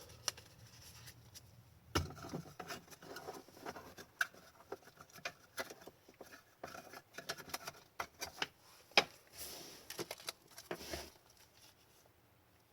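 Hockey trading cards being handled and flipped through: an irregular run of light clicks, taps and short rustles, stopping near the end.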